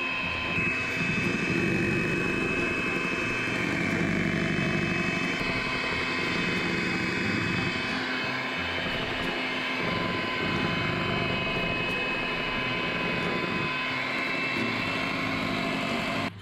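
Electric hand mixer running steadily with a high motor whine, its beaters churning through cake batter in a bowl.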